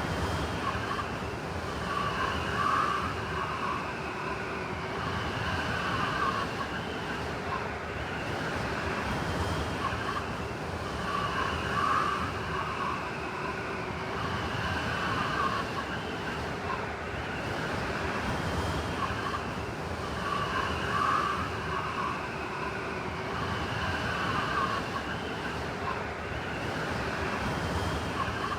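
Blizzard wind rushing steadily, with a whistling howl that swells and fades again and again.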